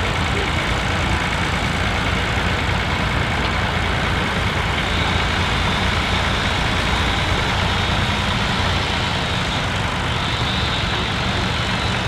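Vintage tractor engine running steadily at low speed while pulling a mounted plough through the soil.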